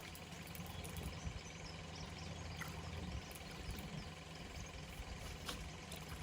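Faint steady low motor hum, with a few faint ticks and chirps over it.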